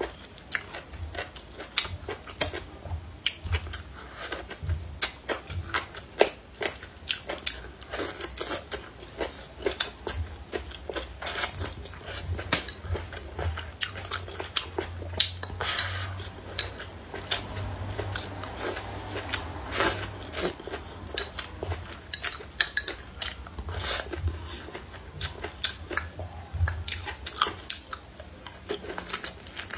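Close-miked eating of braised pork ribs: biting and chewing, with frequent sharp clicks of chopsticks against the bowl, over a faint low hum.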